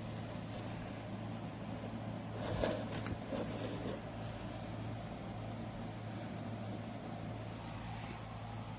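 A steady low hum under faint background noise, with a few light clicks about two and a half to three seconds in.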